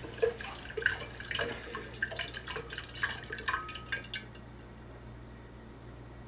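Water dripping from the vent valve of an under-sink point-of-use water heater: quick drops and plinks, several a second, that stop about four seconds in.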